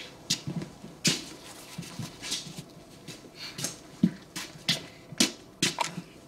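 Irregular rustling and handling noises, with a few soft knocks, of people moving about and handling small packets and clothing.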